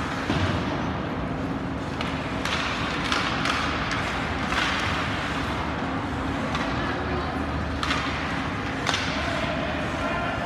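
Youth ice hockey game sound: skates scraping the ice in several short bursts, with a few knocks and background voices over a steady rink hum.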